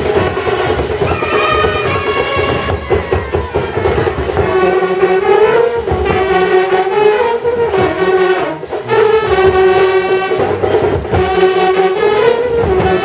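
Indian street brass band playing a loud wavering melody in unison on trumpets and baritone horns, with drums beating underneath; the horns break off briefly about eight and a half seconds in, then carry on.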